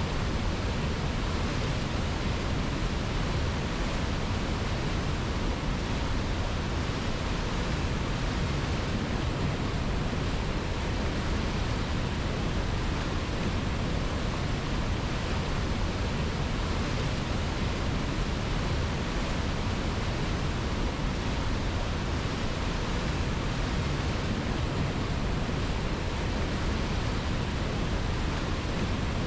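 A river flowing: a steady, unbroken rush of water with no separate splashes or changes.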